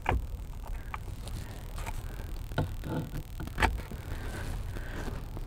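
Scattered short clicks and knocks, about half a dozen in a few seconds, from a Phillips screwdriver, screws and plastic steering-column parts being handled and set in place.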